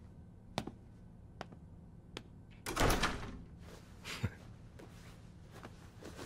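A few light clicks, then a louder thump with some rustle about three seconds in and a shorter knock about a second later.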